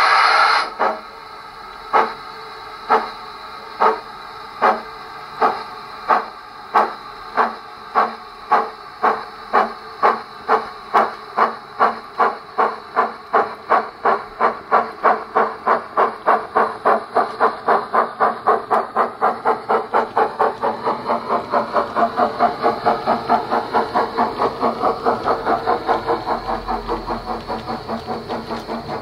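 Wheeltappers DCC sound decoder in a Bachmann 9F model steam locomotive, playing through the speaker in its tender. A hiss of steam cuts off within the first second. Then the locomotive's exhaust chuffs begin slowly, about one a second, and quicken steadily to three or four a second as the engine gathers speed.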